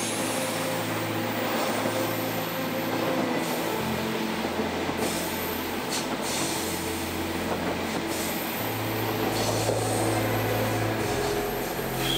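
ÖBB Railjet passenger coaches running past close by on the track, a steady dense rolling noise, with a low hum joining about two thirds of the way through.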